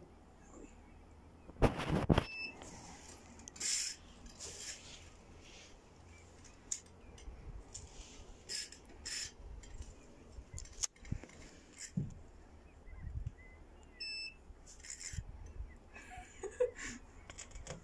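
Scattered knocks and rustles from a spinning rod and reel being worked while a heavy fish is played from a small boat. Two short, high electronic beeps sound, about two seconds in and again about fourteen seconds in.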